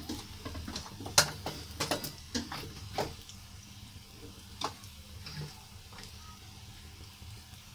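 Kitchen utensils clicking and knocking: a quick run of sharp clicks in the first three seconds, one more a little later and a louder knock at the very end. Underneath, a faint sizzle of masala frying in oil in a wok.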